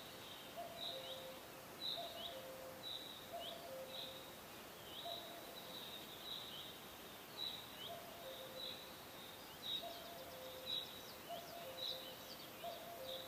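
Small animal calls repeating steadily: short high chirps that slide down, about one or two a second, over soft low notes that alternate between two pitches.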